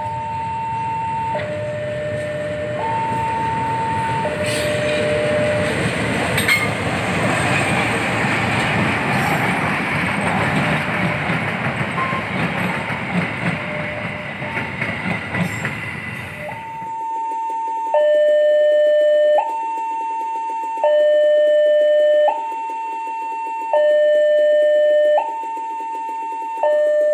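A level-crossing warning alarm alternating between two tones, changing about every one and a half seconds, while a CC201 diesel-electric locomotive and its crane train approach and pass, their rumble and a few wheel clacks filling the first two-thirds. After a sudden cut, a louder two-tone crossing alarm sounds alone.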